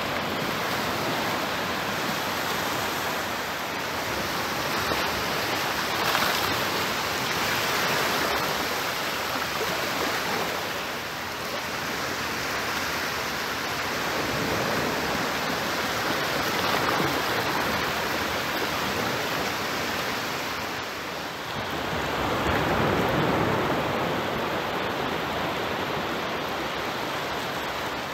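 Small waves breaking and washing up a sandy beach: a steady rush of surf that swells and eases every few seconds.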